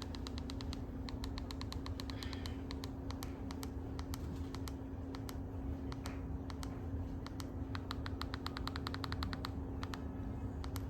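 Runs of light, rapid clicks, fastest about nine seconds in, over a steady low hum.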